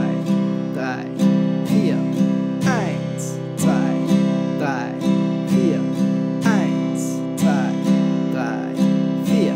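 Steel-string acoustic guitar strumming a C major chord in a steady down, down-up, up-down-up rhythm, the chord ringing between strokes.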